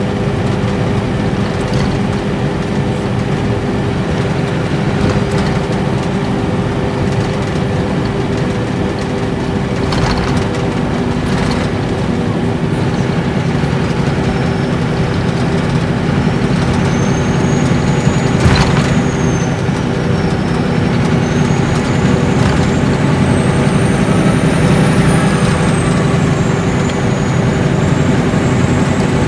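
Cabin running sound of a Nissan Diesel Space Arrow RA coach at expressway speed: its inline-six turbo diesel hums steadily under road and tyre noise. From about halfway a high turbo whistle rises and falls in pitch, and there is a single sharp knock a little past the middle.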